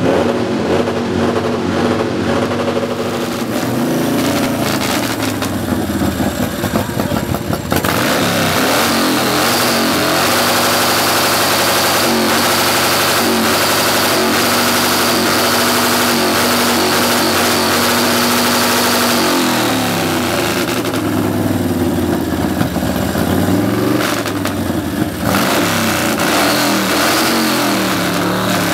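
Custom chopper motorcycle's engine being revved hard, its pitch gliding up and down. It is held at high revs for about ten seconds in the middle, then drops and climbs again.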